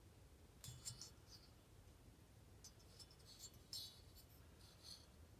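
Near silence, with faint scratchy handling noises from a chainsaw cylinder being turned over in the hand: a few short scrapes about a second in, then more from about three to five seconds in.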